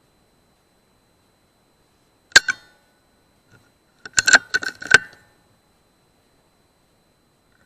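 Sharp metallic clicks from a .177 Air Arms S200 PCP air rifle, shot and cycled: one sharp click about two seconds in, then a quick run of metallic clicks and clinks with a short ring between about four and five seconds in.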